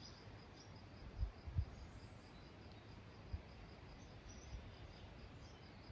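Faint outdoor ambience: a soft, even chirping, high-pitched and repeating a few times a second like an insect, with a few brief low thumps.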